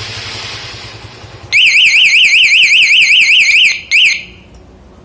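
Motorcycle anti-theft alarm siren warbling rapidly up and down, about six sweeps a second, for about two seconds, then one more short chirp after a brief pause. Before the siren starts there is a steady hiss.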